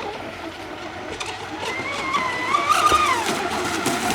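An RC speedboat's electric motor whining over rising noise, its pitch climbing as the throttle opens and dropping back near the end.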